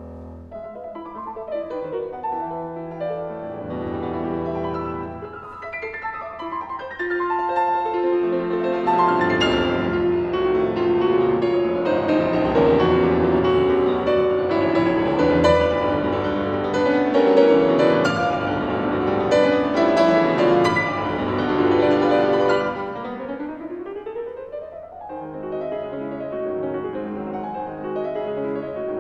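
Steinway & Sons grand piano played solo, many notes at once, swelling from soft to loud over the first two-thirds. A fast rising run of notes follows, and then the playing drops back to a quieter passage.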